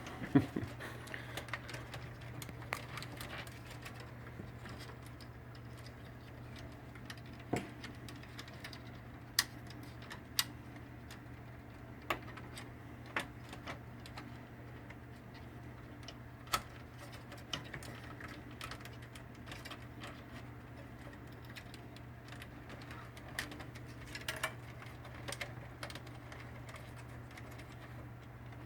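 Scattered small clicks and taps of wire connectors being plugged back into the printer's circuit board and the wiring being handled, a few sharper snaps among them, over a steady low hum.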